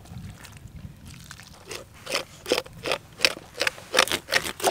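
A knife blade scraping the outer layer off a crocodile's hide in quick repeated strokes, about three a second, starting a little under two seconds in.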